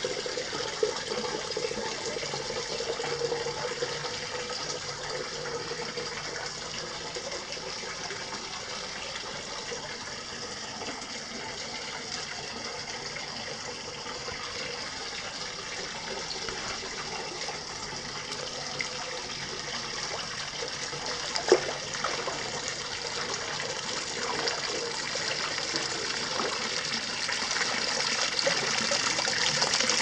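Hot-spring water running from a wooden spout into an open-air rock bath: a steady splashing rush that grows louder near the end. There is a single sharp knock about two-thirds of the way through.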